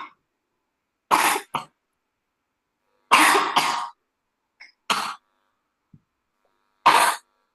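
A person coughing and clearing their throat in four short fits, each a harsh burst of one or two coughs, with silence between them.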